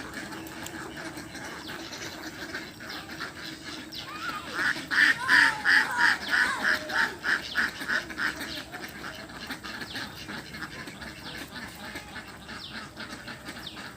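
Domestic waterfowl calling: a fast run of loud, repeated calls, about four a second, lasting about four seconds from a third of the way in, with quieter calls before and after.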